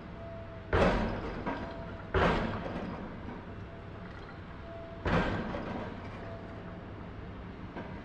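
Heavy machinery banging: three loud bangs, each dying away over about a second, come about a second in, just after two seconds, and about five seconds in. Under them runs a steady low machine rumble.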